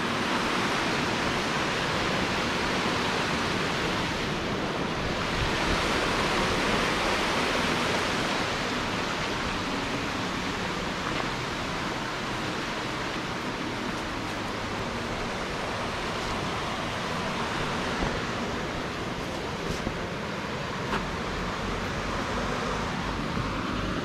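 Rushing white water of river rapids: a steady roar that grows a little softer after the first several seconds.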